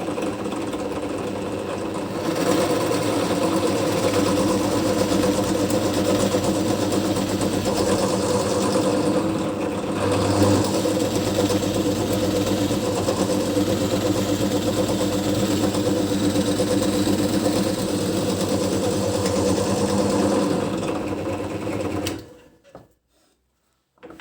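Bench drill press (pillar drill) running steadily, its motor humming while the bit drills into a small workpiece held in a clamp jig. It gets a little louder about two seconds in and stops near the end.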